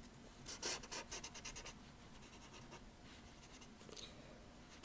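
Faint rubbing of a hand-held drawing tool over pencil shading on paper: a quick run of short strokes in the first second and a half, then one more stroke near the end.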